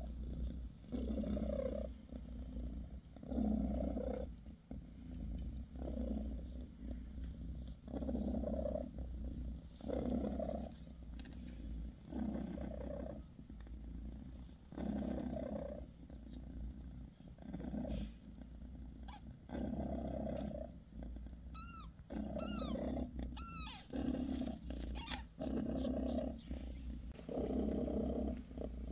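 British Shorthair mother cat purring steadily, the purr swelling with each breath about every two seconds. A little past the middle, a newborn kitten gives three short high squeaks.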